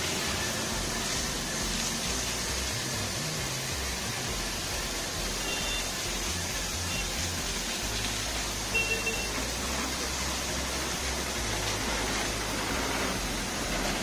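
Pressure washer running with its foam cannon spraying snow foam, a steady even hiss. Two brief faint high beeps sound about six and nine seconds in.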